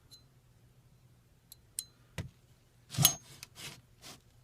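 Small clicks of polymer and steel as a Glock slide's cover plate is worked along its rails, then a louder short scraping snap about three seconds in as the plate slides off, followed by two softer scrapes.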